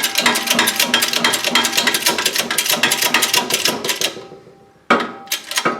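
Rapid, even mechanical clicking, about eight clicks a second, fading away about four seconds in; a new burst of clatter starts near the end.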